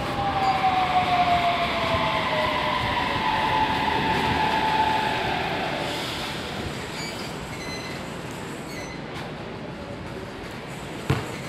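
Alstom Metropolis metro train pulling into the platform and slowing to a stop: rolling noise with an electric drive whine that falls in pitch as it slows, the sound fading away over the second half. A single short knock near the end.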